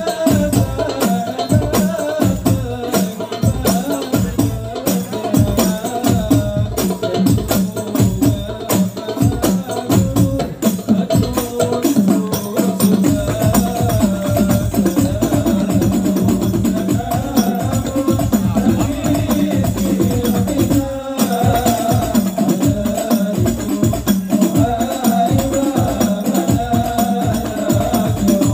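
Hadroh music: a group of rebana frame drums beating a dense, steady rhythm under a melody line, with a brief break about three quarters of the way through.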